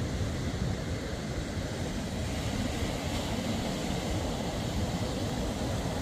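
Steady rumbling wind buffeting a phone's microphone, mixed with the wash of surf.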